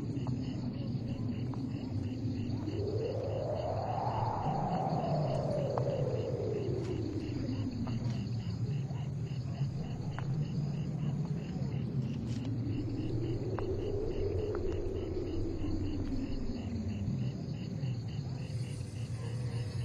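Eerie soundtrack drone: a low steady hum, with a slow tone gliding up and back down twice over it, and a steady high pulsing chirr.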